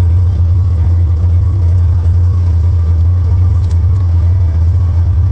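Tractor engine running steadily under load, a loud, even low drone.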